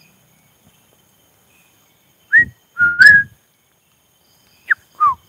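A person whistling short bird-like calls to draw an answer: a rising note and a longer note that steps up in pitch about halfway through, then a short note and a downward-sliding note near the end.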